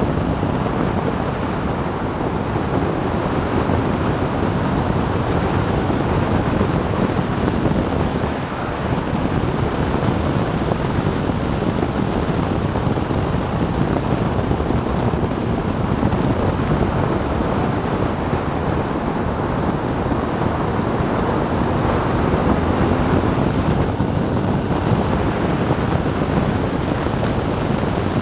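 Wind rushing over the microphone of a BMW R1200GS Adventure motorcycle ridden at about 90 to 125 km/h, with its boxer-twin engine running steadily underneath.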